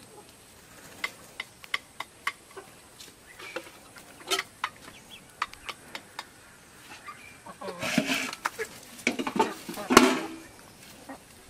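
Chickens clucking amid scattered light clicks and knocks. The sounds grow busier and louder about eight to ten seconds in.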